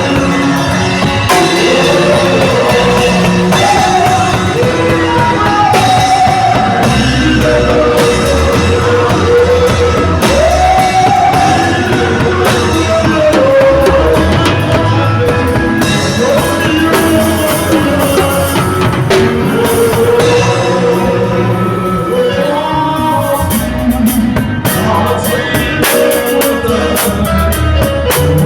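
Live band playing a song at a sound check, with drum kit, guitar and a singer, loud and steady.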